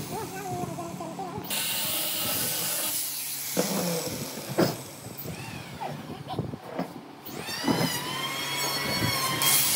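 Workshop machine noise: a steady hiss with a few sharp knocks around the middle, and a motor whining up and down in pitch near the end.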